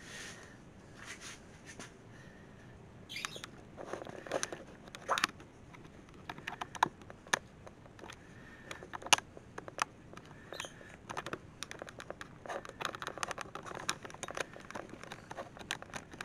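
Irregular light clicks, taps and short scratching rustles, scattered unevenly with a few louder sharp clicks.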